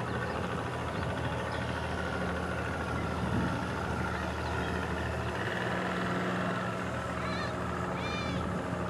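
Outboard motor running steadily at low speed, a constant low hum under wind and water noise. Two short high chirping calls near the end.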